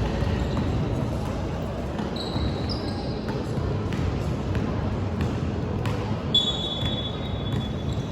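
Basketball game in a gym hall: the ball bouncing on the court and sneakers squeaking on the floor, once about two seconds in and again, longer, from about six seconds, over a steady din in the hall.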